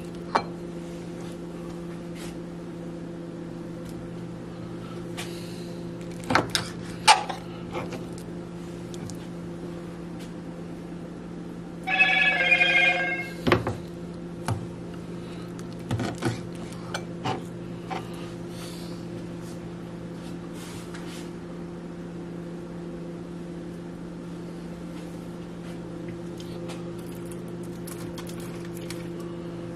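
Knife and hands working raw chicken thighs on a plastic cutting board: scattered light knocks and clicks, over a steady low hum. About twelve seconds in comes the loudest sound, a ringing of several pitched tones at once, lasting about a second and a half.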